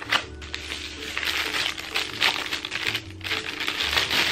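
Clear plastic packaging bag crinkling as it is handled and pulled open, with a small cardboard box being opened.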